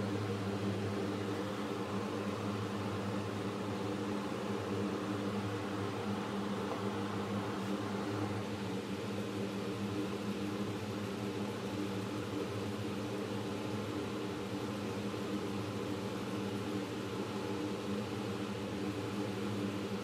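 WEN benchtop wood lathe running steadily with a constant hum while friction polish is rubbed onto the spinning pen blank with a cloth.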